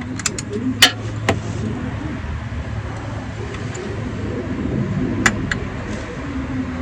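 A few sharp metal clicks and clinks of a wrench being handled, over a steady low rumble.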